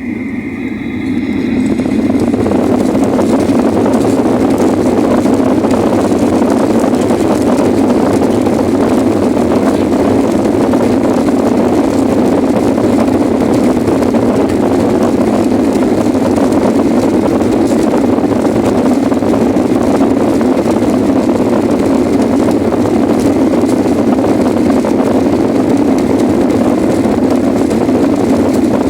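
Boeing 737 jet engines spooling up over the first two seconds for takeoff, then running steadily at high power.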